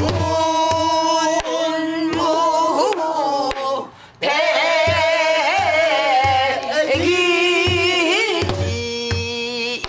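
A woman singing a Korean Namdo folk song in a strained, heavily wavering voice, accompanying herself with low strokes on a buk barrel drum struck with a stick. She breaks briefly for breath about four seconds in.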